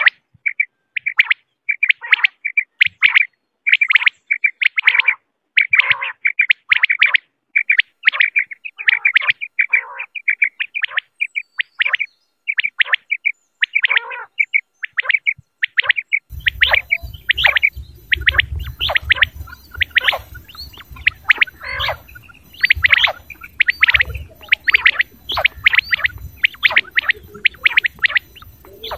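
Quail calling over and over in quick, short, sharp notes, two or three a second. About halfway through the recording changes and a low hum and hiss run under the calls.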